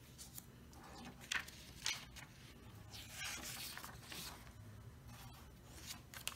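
Faint rustling and sliding of paper cards being handled on a tabletop: a few short brushes, with a longer shuffle partway through.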